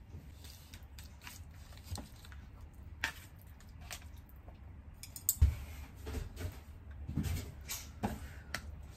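Plastic film packet of ready-made spaghetti crinkling as it is handled, and chopsticks clicking and scraping as the noodles are put into a metal bento box, with a sharp knock about five and a half seconds in.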